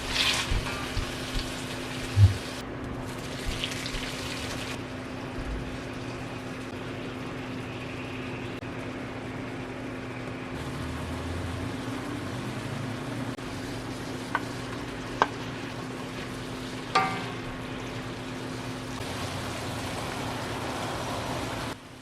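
Food frying in a pan with a steady sizzle, with a few sharp clinks of a utensil against the pan.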